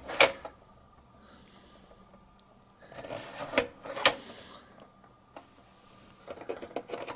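Plastic View-Master stereoscope viewer clicking as its lever is pressed to advance the reel to the next slide, a few sharp clicks with handling noise.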